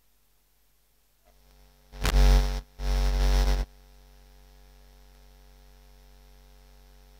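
Electrical hum and buzz from the sound system. A steady mains hum comes in after about a second, cut by two loud bursts of buzzing static about two and three seconds in, then settles back to a steady hum.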